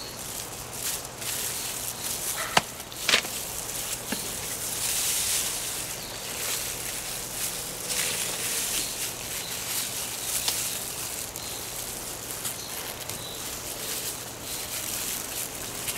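Rustling and scraping of digging through wet container soil to harvest potatoes, with two sharp knocks about two and a half and three seconds in.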